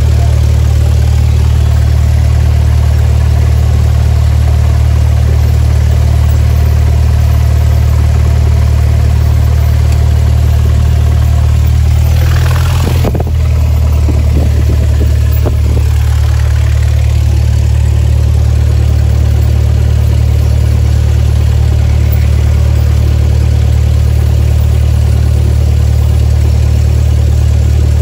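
Light single-engine propeller plane's piston engine running steadily at low taxi power, heard from inside the cabin. There is a brief burst of rustling noise about halfway through.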